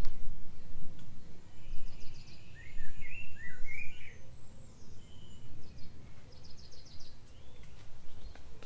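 Uneven low rumble of wind buffeting the microphone, with small birds chirping and trilling, mostly in the first half and again about six seconds in.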